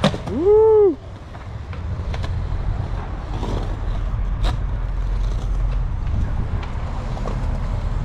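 A skateboard clacks on a concrete ledge, followed a moment later by a loud, short pitched call that rises and then falls. A steady low rumble of skateboard wheels rolling on concrete runs underneath, with a few light clicks later on.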